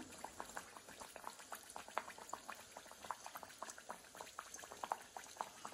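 Teler pitha, a rice-flour batter cake, deep-frying submerged in hot oil in a karai: faint, irregular crackling and popping of the bubbling oil around it, several pops a second.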